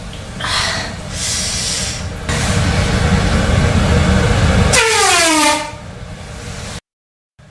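Comedic fart sounds: a few short rasps, then a long, loud, buzzing fart, ending in a squeal that falls in pitch. It cuts off suddenly near the end.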